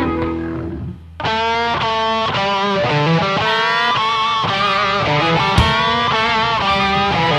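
Instrumental blues-rock band with electric guitar. A held chord dies away, there is a short drop-out about a second in, and then a lead line of bending notes comes in over the band. A single sharp drum hit comes about two-thirds of the way through.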